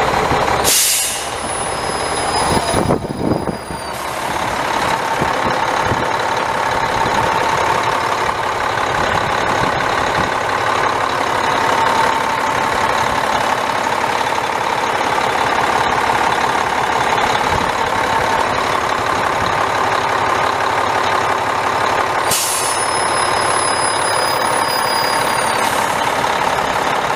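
Cummins ISM 10.8-litre inline-six turbo diesel in a semi truck, running steadily. Twice, about a second in and again about 22 seconds in, a high whistling hiss rises over it for about three seconds and stops suddenly.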